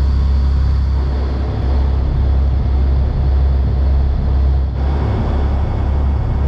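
Passenger ferry's engines running steadily at cruising speed, a loud constant low drone, with the rush of the wake and wind along the deck.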